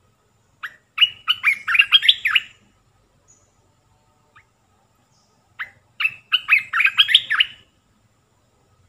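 Olive-winged bulbul singing two short phrases of quick whistled notes, one just after the start and one past the middle.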